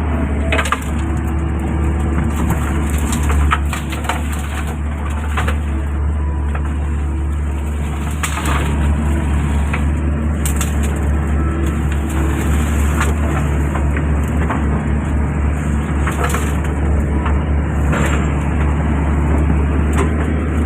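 Excavator diesel engine running steadily, with scattered short clicks and knocks from the machine as it works.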